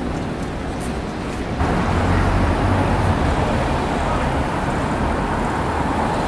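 City street traffic noise: a steady hiss and rumble of passing cars, which gets abruptly louder and deeper about a second and a half in as a car drives by.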